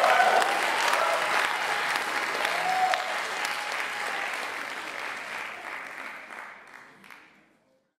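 Audience applauding after a live song, with a few voices calling out, the applause fading steadily away over several seconds.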